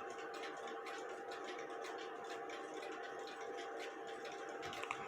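Quiet room tone with a steady faint hum, and a few light clicks near the end from small handling at the bench.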